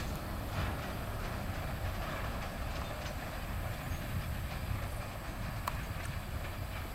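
Freight train of tank cars rolling slowly along the track: a steady low rumble of steel wheels on rail with faint scattered clicks, and one brief sharp click near the end.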